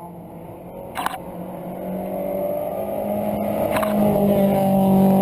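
Rally car's engine under hard acceleration, growing steadily louder, heard from inside the cabin. Two sharp clacks cut through it, about a second in and just before four seconds.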